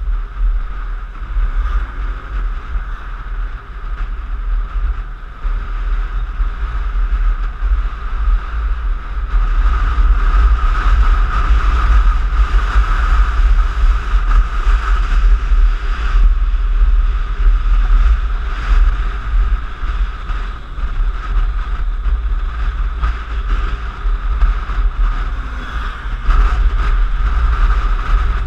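Piaggio X9 scooter riding on the road, its engine buried under heavy wind rumble buffeting the camera microphone. The noise grows louder about nine seconds in and stays up.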